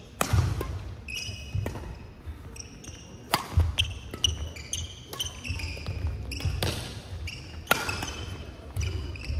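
Badminton doubles rally: several sharp racket hits on the shuttlecock, one to three seconds apart, with court shoes squeaking in short high chirps and feet thudding on the wooden court floor between shots.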